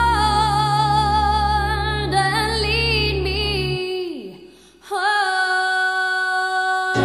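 Music: a woman singing slow, long held notes of a gospel song over sustained keyboard and bass. About four seconds in the bass stops and the voice trails off into a brief dip, then a new note is held.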